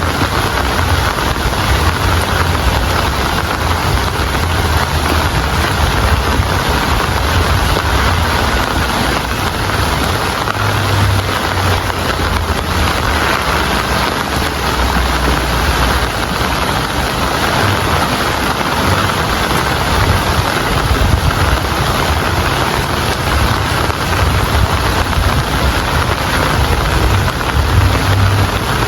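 Steady, heavy rain falling, an even hiss, with a low rumble swelling and fading underneath.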